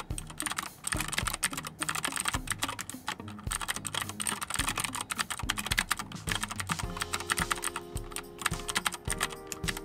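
Continuous fast typing on a Keychron K10 full-size mechanical keyboard with clicky blue switches: a rapid, dense run of sharp key clicks.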